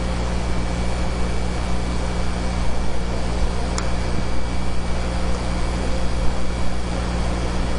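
Steady background hum and hiss with no other activity, and a single faint click about four seconds in.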